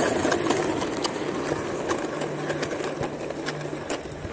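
Quad roller-skate wheels rolling over rough asphalt, a rumble with scattered small ticks that fades as the skater slows in a T-stop, the trailing skate's two wheels dragged as the brake.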